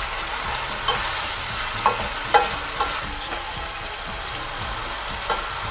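Pork sausages, ribs and mince frying in olive oil in a stainless steel pot, a steady sizzle, with a few short clicks and knocks in the first half.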